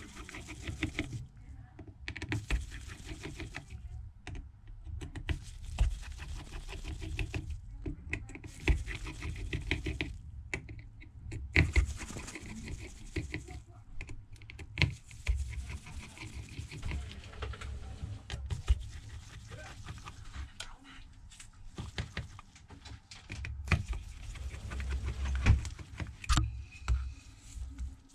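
Small, irregular clicks and scrapes of a precision Phillips screwdriver turning out the tiny screws that hold a smartphone's inner back cover.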